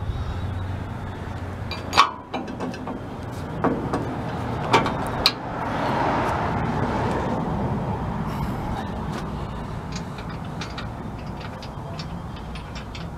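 A few sharp metal knocks and clanks as the truck's steel front bumper and its tow hook are handled with gloved hands. About six seconds in, a rushing noise swells and then slowly fades.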